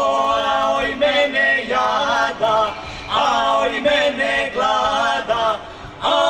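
A Serbian folk vocal group, men and women together, singing a traditional folk song in an ornamented, wavering style, with short breaths between phrases.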